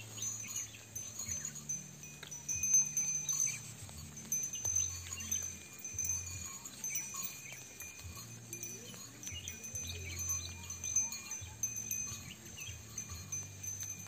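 Wind chimes ringing in light, scattered strikes over a low humming drone that steps in pitch every second or so.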